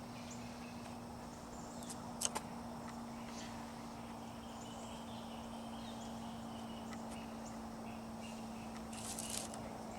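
Quiet outdoor ambience of faint bird chirps over a steady low hum, with one sharp click about two seconds in and a brief rustle near the end.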